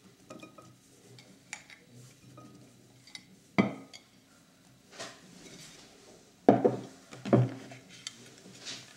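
Ceramic plate and glass bowl clinking and knocking against each other and the table while kidney beans are dropped in by hand. The knocks are scattered, and the two loudest come late, under a second apart.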